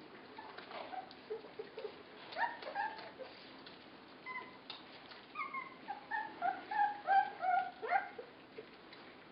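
Litter of 24-day-old border collie puppies whimpering and yipping in short, high calls as they eat, a few at first and then a quick string of them in the second half, over faint clicking from their eating.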